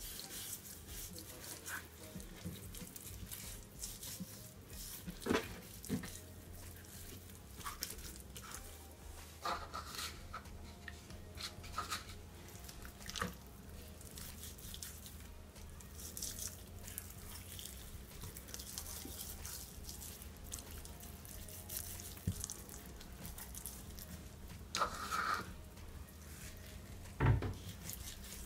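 Faint wet squishing and patting of hands rubbing a dry spice rub into raw whole parrot fish, with a few louder handling knocks as the fish are lifted and set back on the wooden board. A faint low hum runs underneath.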